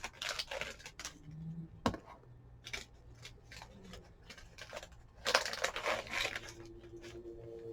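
Light clicks and crinkling of a plastic snack package being handled and opened, with a sharp click about two seconds in and a denser burst of crinkling a little past the middle.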